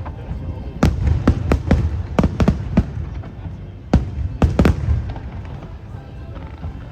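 Fireworks shells bursting overhead in a rapid string of sharp bangs over a continuous low rumble, with a gap of about a second midway before a second cluster of bursts.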